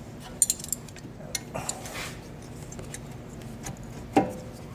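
Small metallic clicks and clinks of tools and brake parts being handled while a rear brake is taken apart: a quick cluster of clicks about half a second in, then a short scraping rustle around two seconds.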